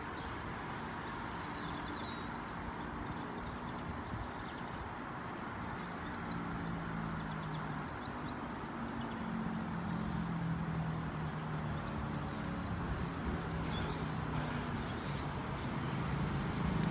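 Level crossing's faulty audible warning alarm bleeping instead of its normal yodel, over the hum of waiting road traffic; the sound grows louder near the end as a train approaches.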